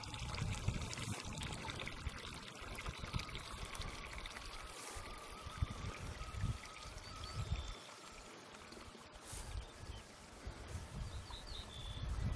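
Water trickling from a spout into a concrete trough, with wind gusting on the microphone in low, uneven rumbles.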